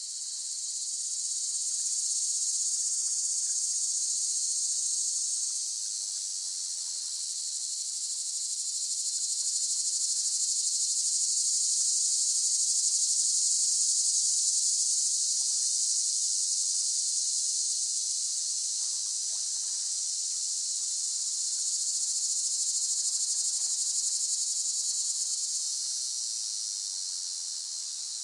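Cicadas buzzing in a continuous high, dense chorus that swells and eases slowly in loudness.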